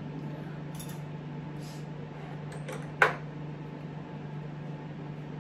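Steady low hum of room tone in a small room, with a few faint rustles and one sharp knock about three seconds in.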